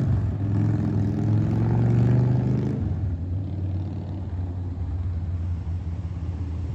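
Harley-Davidson bagger's V-twin engine running on a test ride. Its note rises a little, then eases off and settles lower about three seconds in.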